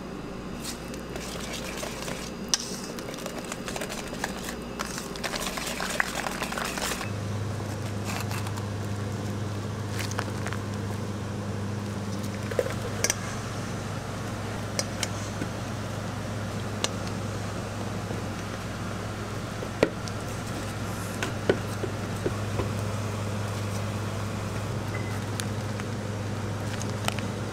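Steady low machine hum that shifts to a different, steadier tone about seven seconds in, with scattered sharp clicks and clinks.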